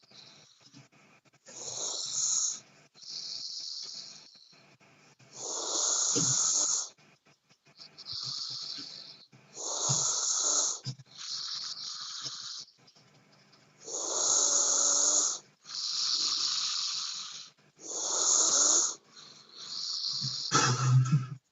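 A sleeping person snoring: a loud snore about every four seconds, with a softer hissing breath between each. A short, deeper, louder snort comes near the end.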